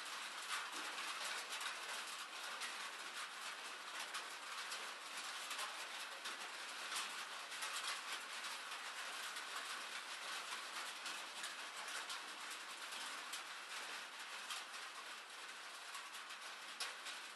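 Steady rain falling: an even hiss thick with the small taps of many drops.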